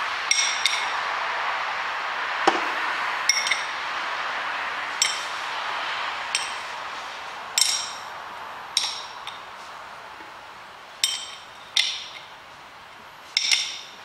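Steel spanner clinking and tapping against the metal parts of a Hobart mixer's gear housing: about a dozen sharp, ringing metallic clinks at irregular intervals, some in quick pairs. A steady hiss in the background slowly fades.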